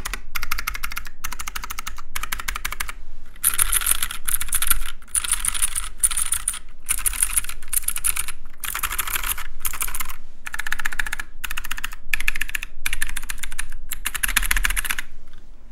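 Very fast typing on a mechanical keyboard: dense runs of key clicks in bursts of about a second, with short pauses between them, stopping near the end.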